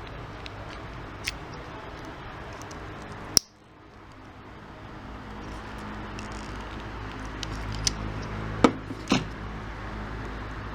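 A crimping tool closing an RJ45 connector onto a Cat5e Ethernet cable, giving a few sharp clicks over a steady hum. One loud click comes about three and a half seconds in, and a cluster of clicks comes near the end.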